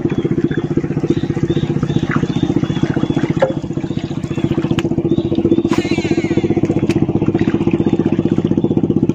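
Small boat engine running steadily with a fast, even putter.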